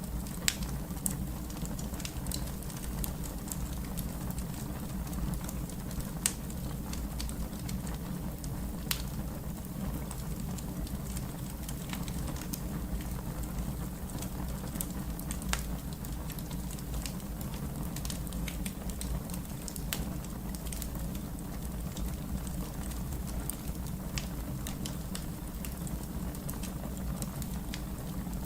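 Fire crackling: scattered sharp pops and snaps, a few louder than the rest, over a steady low rumble of the burning.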